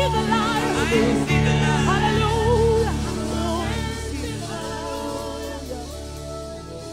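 Live gospel worship music: singers with a wavering vibrato over a band with steady bass. The singing dies away after about three seconds, and the band plays on more quietly.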